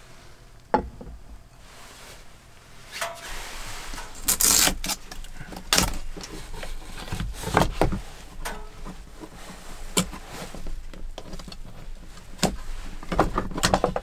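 Scattered knocks, clicks and rustling as things are handled and moved about inside a small camper cabin, with a louder rustle about four and a half seconds in and a cluster of knocks near the end.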